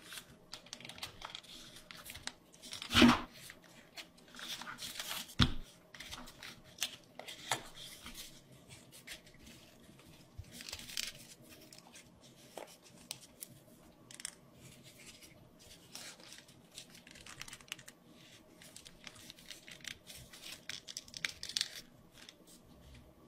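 A sheet of origami paper being folded and creased by hand: crinkling and rustling, with two sharper taps about three and five and a half seconds in.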